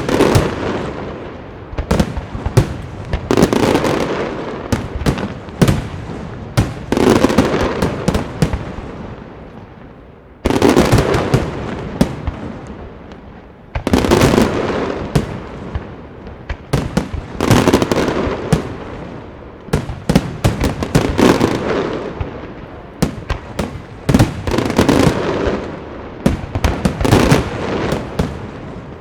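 Aerial fireworks display: volleys of shells bursting, a new volley about every three and a half seconds, each a cluster of sharp bangs followed by many smaller pops and a rumbling tail that fades.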